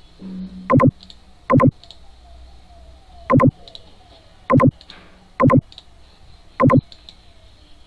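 Computer mouse button clicked six times close to the microphone: loud, sharp clicks at uneven gaps of one to two seconds, each a quick press-and-release pair.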